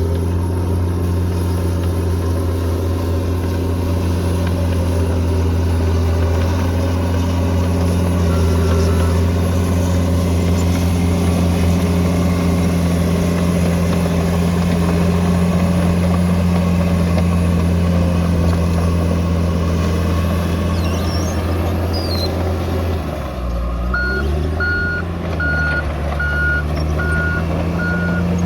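Bulldozer diesel engine running steadily under load, its pitch dipping and shifting about 23 seconds in as it changes direction. It then backs up with its reversing alarm beeping about one and a half times a second until near the end.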